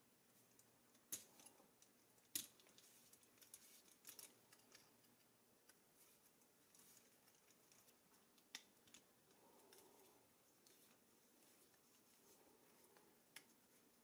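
Screwdriver clicking and scraping against a screw head on the rusty steel chassis of a Doepke Jaguar XK120 toy car as a screw is worked loose. The sound is faint: a few sharp metal clicks spaced a second or more apart, with quiet scraping between them.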